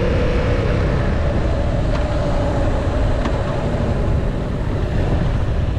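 Yamaha motorcycle cruising with a steady engine note that eases slightly downward, under a heavy rush of wind and road rumble on the rider's helmet-mounted microphone.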